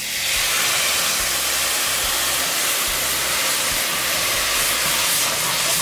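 Chicken broth poured into a hot stainless-steel pan, hissing and sizzling as it boils and steams on the seared beef drippings: a pan being deglazed. The hiss starts suddenly and holds steady.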